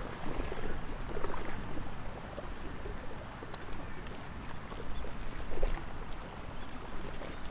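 Wind blowing over the microphone outdoors: an uneven low rumble and hiss that rises and falls in gusts.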